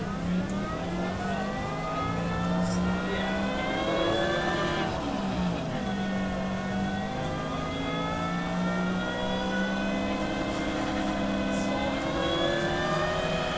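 Harley-Davidson LiveWire electric motorcycle run up on a display stand: its electric drive whines, rising in pitch for about four seconds, dropping back sharply, then climbing again and easing off near the end, over a steady low hum.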